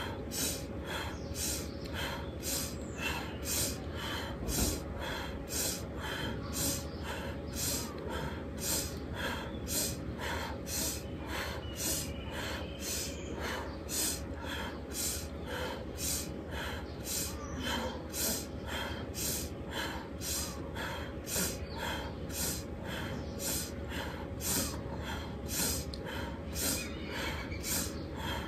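Rapid, forceful pranayama breathing in an even rhythm, about one and a half breaths a second: sharp inhales through the nose alternating with exhales through a rounded mouth.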